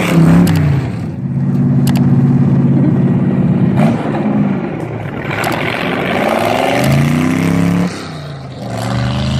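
Car engine revving: its pitch climbs, holds steady for a couple of seconds, falls away, then climbs again several times, with a couple of sharp clicks early on.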